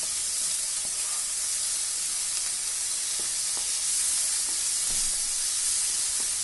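Green peas, onion and garlic sizzling in butter in a kadai, a steady hiss, while a wooden spatula stirs them with faint scrapes against the pan. The peas are frying until they shrink slightly.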